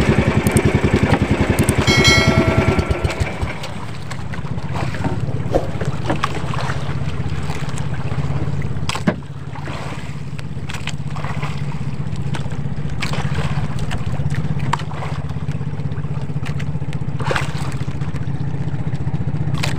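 Engine of a motorized outrigger fishing boat running steadily with the boat under way: a constant low, evenly pulsing drone, louder for the first three seconds.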